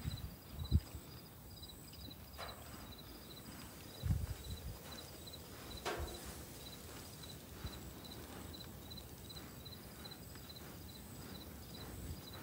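Faint outdoor quiet with an insect chirping steadily, about two to three short high chirps a second, and a few soft low thumps.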